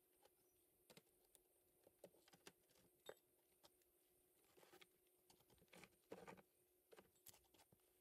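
Near silence, with a scattering of faint, short clicks and taps.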